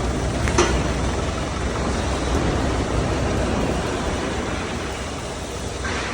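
Steady mechanical din of a diesel-generator-powered mobile jaw crusher plant with a vibrating screen running, over a constant low engine hum, with one sharp knock about half a second in.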